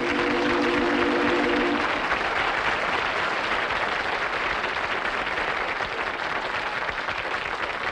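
Studio audience applauding steadily. A held musical chord rings under the first two seconds, then stops.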